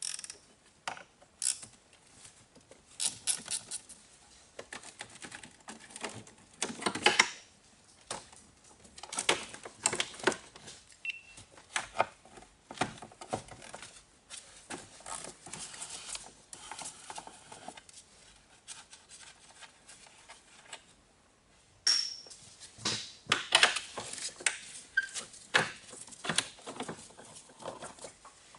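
Hand tools clinking and clicking against metal in irregular knocks and rattles, with a brief pause about three quarters of the way through.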